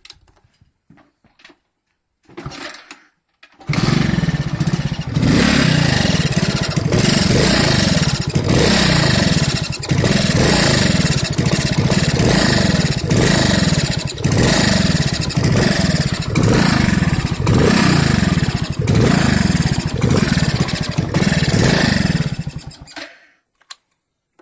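Moped's single-cylinder four-stroke engine started about four seconds in and run with the throttle blipped over and over, rising in pitch about once a second, then switched off near the end. It has a whistle that turned out to be an air leak at the intake manifold, whose gasket was not properly clamped because of a stripped bolt.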